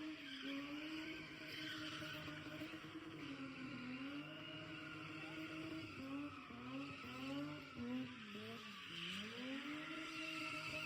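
Car engine being driven hard in racing, its pitch rising and falling again and again with the throttle, with tyre squeal.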